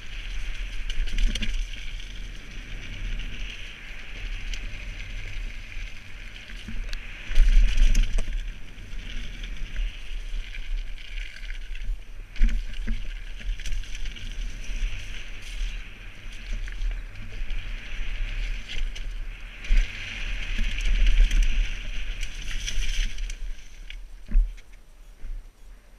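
Wind buffeting a helmet-mounted action camera while a Kona mountain bike's tyres rumble fast down a wet dirt trail. The bike rattles over the rough ground, with a few sharp knocks from bumps and landings; the loudest come about a third of the way in and near the end.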